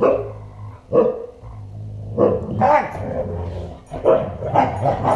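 Siberian huskies play-fighting: a run of about seven short, loud barks with growling between them.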